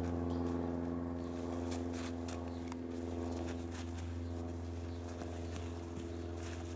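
A steady low machine hum at a fixed pitch, with faint scattered taps and shuffles of a horse's hooves moving on sand.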